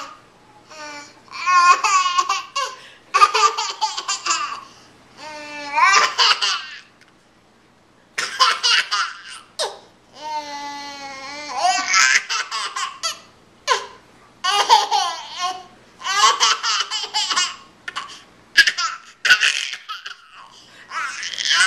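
Baby laughing hard while being tickled: high-pitched fits of laughter in about ten bouts, each a second or two long, with short breaks for breath between them.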